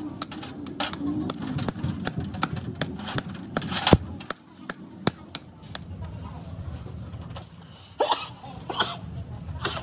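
Hammer tapping on a steel helical differential gear: a string of light, irregular metal taps with one loud sharp strike about four seconds in, then a few louder metallic clinks near the end.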